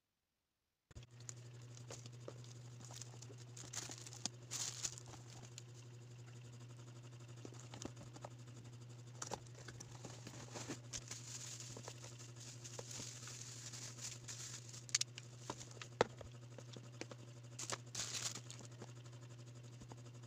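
Plastic packaging and bubble wrap crinkling and rustling as they are handled, with scattered clicks and short louder crinkles, the strongest around four to five seconds in and near the end. A steady low hum sits underneath, and the sound starts abruptly about a second in.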